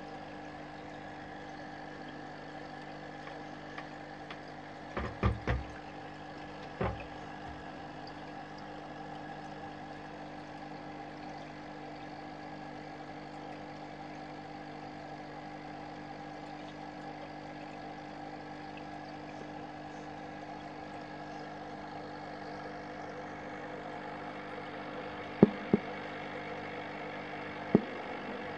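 Steady mechanical hum holding several fixed pitches, from a small electric machine running near the prawn tank. A few short knocks come about five to seven seconds in, and three sharp, louder knocks near the end.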